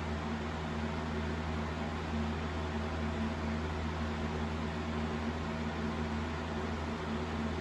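20-inch Utilitech/Pelonis plastic box fan running steadily on its high setting: an even rush of air with a steady motor hum underneath.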